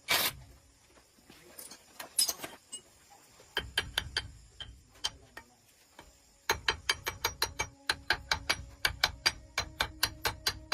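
A sharp knock, then rapid, evenly spaced clicking of about five clicks a second over a low rumble. The clicking starts about three and a half seconds in and runs steadily from about six and a half seconds.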